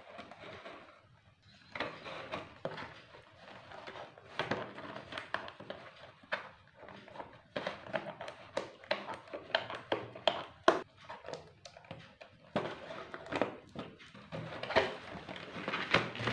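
A cardboard doll box being handled and snipped with scissors: irregular rustling and scraping of cardboard and packaging with many sharp clicks, the sharpest about ten seconds in.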